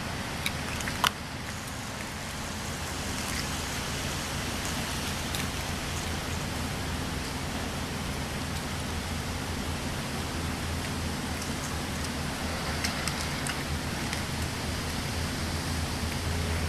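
Steady background noise: an even hiss over a low, steady hum, with a single sharp click about a second in.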